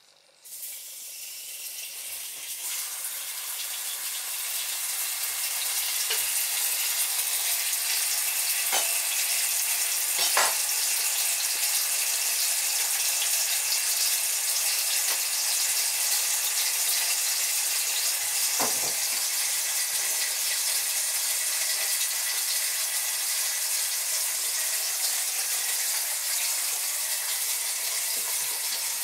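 A steady sizzling hiss comes in suddenly and builds over the first few seconds, then holds, with a few light clicks on top.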